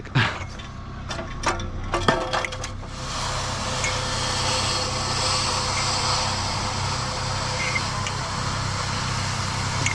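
Concrete mixer truck engine running steadily. It sets in about three seconds in, after a few scattered knocks and scrapes.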